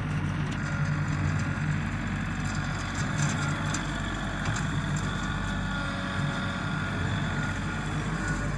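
Green compact utility tractor running steadily while towing a rotary cutter through dry pasture grass: a constant low engine drone, with a few light ticks about three to four and a half seconds in.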